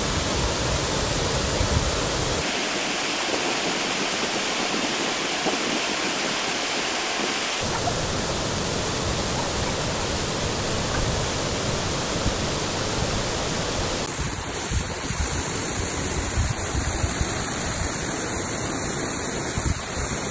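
Waterfall's steady rush of falling water, heard close to the fall. Its deep low rumble drops out for about five seconds a couple of seconds in, then returns.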